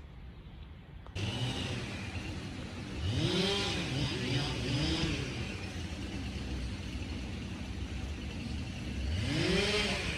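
A car engine pulling away and accelerating over a steady engine hum and road noise. Its pitch sweeps up and back down three times in quick succession around four seconds in, and once more near the end.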